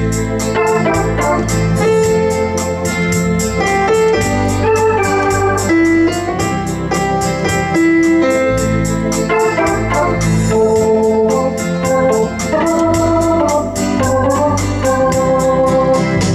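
Lowrey Prestige Virtual Orchestra home organ playing a 1970s-style rock-pop tune, with piano, guitar and B3-type organ voices over a steady beat.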